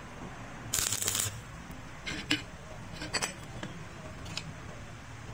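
Metal hand tools being handled on a dirt floor: a short scraping rustle about a second in, then a few light metal clicks and knocks as the wrench and bolt are taken off and tools are moved about.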